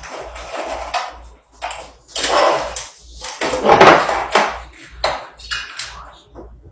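Irregular knocks, clatter and rustling from bottles and containers being handled in a kitchen, loudest a couple of seconds in and again near the middle.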